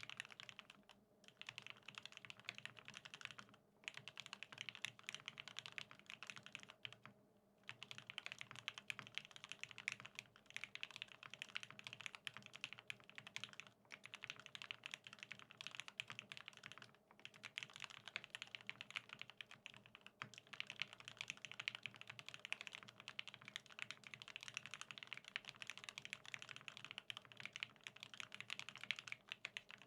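Continuous typing on a BAEBAE TKL custom mechanical keyboard with lubed OA switches, an aluminium plate and NCR G81-3077SAU keycaps: a dense run of keystrokes, broken by brief pauses of under a second several times.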